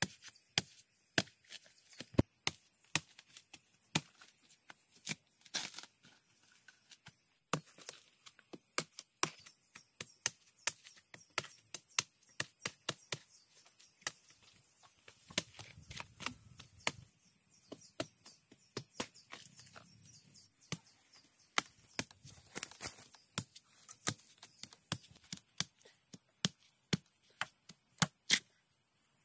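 A blade chopping at the base of bamboo shoots to cut them free: sharp strikes at an irregular pace, about one or two a second, over a steady high hiss.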